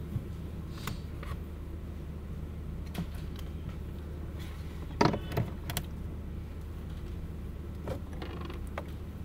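A few short clicks and creaks from a person shifting and handling things at a desk close to the microphone, the loudest cluster about five seconds in, over a steady low hum.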